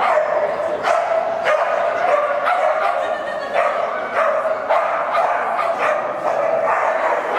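Dog barking repeatedly, about one or two barks a second, the barks running almost together.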